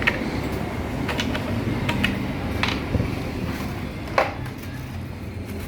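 Scattered sharp clicks and light knocks of hand tools and metal parts being handled, about eight in all with the loudest about four seconds in, over a steady low rumble.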